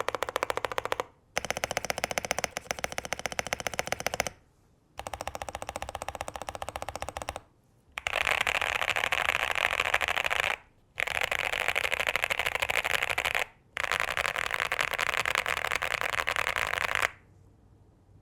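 Fast typing on a QK65 mechanical keyboard fitted with case, plate and PE foam to deepen its sound: a dense run of keystroke clacks. It comes in six stretches of two to three seconds each with short pauses between them. The last three stretches are louder and brighter. The typing stops about a second before the end.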